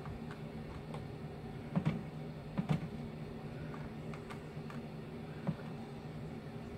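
Scattered light taps and clicks from handling a plastic cup of acrylic pouring paint and a small balloon, over a steady low hum.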